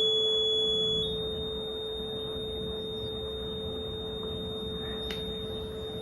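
Electronic sine tones from a tone generator: a high pure tone that steps up in pitch about a second in and then holds steady, over a steady lower tone. The frequency is being raised step by step. A brief click comes near the end.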